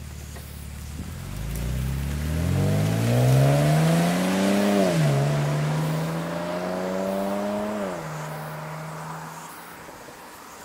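BMW 530i Touring's N52 3.0-litre inline-six with an aftermarket muffler accelerating hard away, revs climbing and then falling at an upshift about five seconds in and again at a second upshift about eight seconds in. The sound fades as the car draws away.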